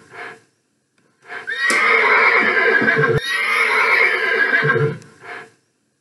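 Horse neighing twice in a row, starting about a second in and dying away about five seconds in.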